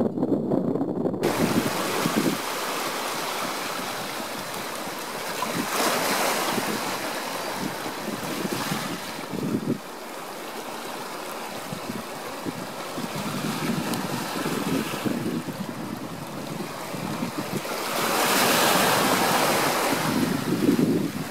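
Wind noise on the microphone with the wash of harbor water, swelling in gusts about six seconds in and again near the end.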